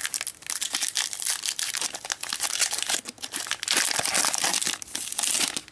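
A Magic: The Gathering booster pack's foil wrapper crinkling and tearing as it is ripped open by hand, a dense run of crackles that stops near the end.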